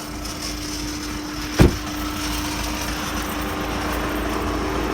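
Audi A3 TDI diesel engine idling steadily, with one sharp knock about a second and a half in.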